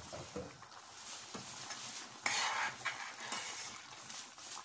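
A metal spoon stirring thick, simmering dal in a stainless steel pot: irregular scraping and sloshing with a few light knocks, louder for a moment about two seconds in.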